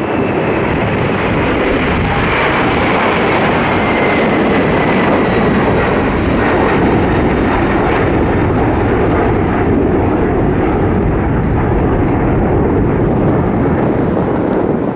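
Jet engines of a KLM Boeing 747-400 at takeoff power on departure, a steady loud roar with a faint high whine that falls slightly in pitch over the first several seconds.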